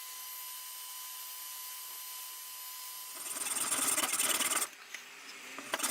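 Hand tool working the wooden hammer handle: two scraping, rasping strokes of about a second and a half each, one about three seconds in and one near the end, over a faint steady hiss with a thin whine.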